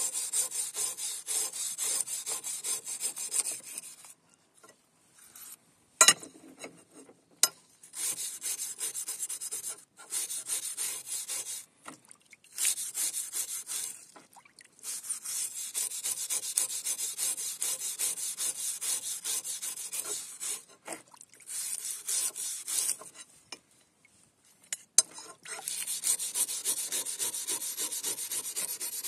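Hand wire brush scrubbing a wet, rusty flat steel bar in a tub of water. Runs of fast back-and-forth scratching strokes are broken by short pauses, with a few sharp knocks about six and seven seconds in and again near the end.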